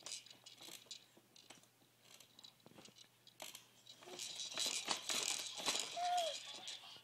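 Plastic toys and fittings of a baby's jumperoo rattling and clicking as she bounces and handles them, thickest from about four seconds in, with a brief baby vocal sound near the end.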